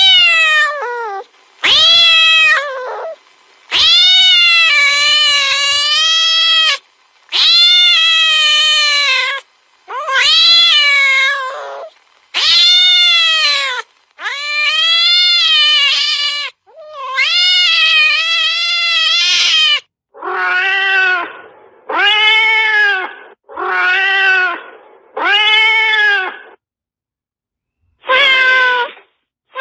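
Domestic cat yowling in a fierce caterwaul: a string of about a dozen long, wailing calls that rise and fall in pitch. Near the end the calls become shorter and lower, coming about one every second and a half.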